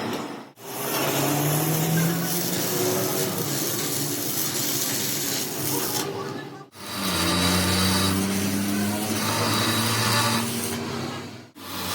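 Metal workshop noise, steady scraping and rubbing of tools over a low mechanical hum, in three stretches broken by sudden cuts about half a second in and just before seven seconds.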